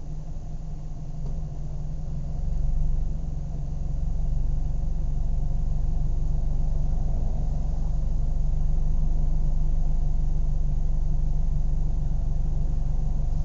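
Car engine running with a steady low rumble. It grows louder over the first three seconds or so and then holds steady, without a clear change in pitch.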